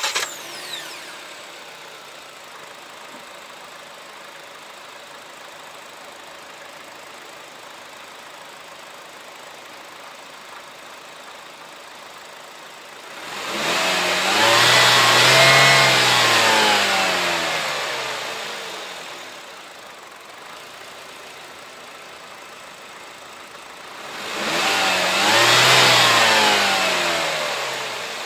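2018 Haval H2's 1.5-litre turbocharged four-cylinder petrol engine starting, with a brief flare that settles into a steady idle. It is then revved twice in the bay, about 14 and 25 seconds in, each time rising in pitch and then dying slowly back toward idle.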